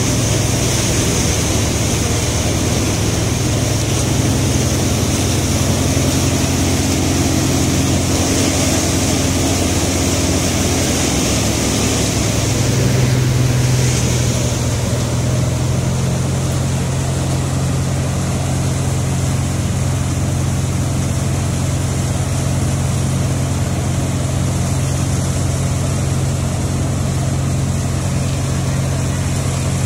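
Multicrop thresher running steadily while threshing paddy: a continuous low mechanical hum under a constant rushing noise of straw and chaff being blown through the machine.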